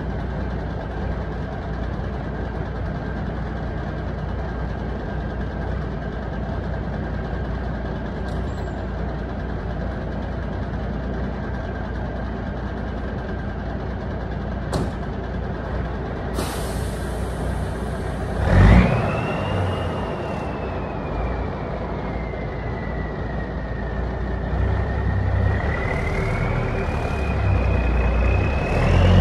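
Kenworth Aerodyne cabover's turbo diesel idling steadily, then a hiss and a sharp burst of air from the air brakes about two-thirds through. A turbo whistle follows, dipping and then climbing as the engine pulls harder and the truck moves off near the end.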